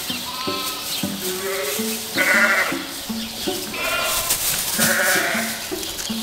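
Sheep bleating several times, each call a wavering half-second bleat, over background music.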